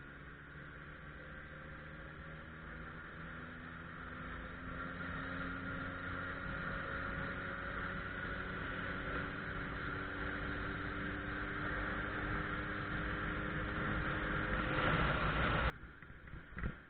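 Suzuki Bandit 1200's inline-four engine pulling under way, its pitch and loudness rising slowly as the motorcycle gathers speed. The sound drops away abruptly near the end.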